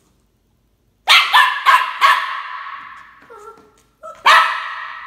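Bichon Frise puppy barking: a quick run of four sharp barks about a second in, then one more loud bark near the end, each ringing briefly in the room.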